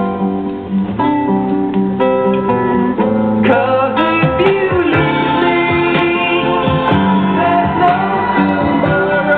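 A song with guitar and a voice singing, played back through the Alba SDC300 music centre.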